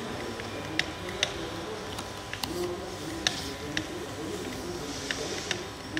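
Hand-pumped hydraulic cable cutter being worked, its pump giving a series of sharp, irregularly spaced clicks as the knife is driven up toward the steel wire rope with the release valve closed.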